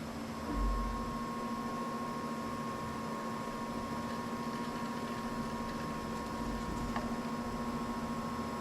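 Seat-and-guide machine's spindle motor starting about half a second in and then running steadily with a whine, turning a reamer that opens a worn valve-guide bore in a cylinder head out to size for an oversized guide.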